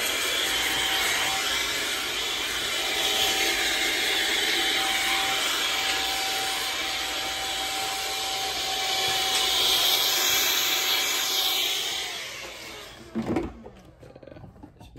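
Handheld hair dryer blowing steadily with a thin motor whine as it clears loose cut hair off the head, winding down and stopping about twelve seconds in. A short knock follows soon after.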